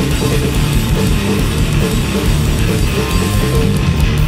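Heavy rock played live and loud by a duo: distorted electric guitar over a drum kit and cymbals played hard, dense and unbroken.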